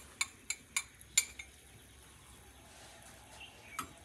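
Light metal clinks of a small utensil tapping against the metal barrel of a hand-press sev (namkeen) machine as ghee is smeared inside it: about five quick clinks in the first second and a half, then one more near the end.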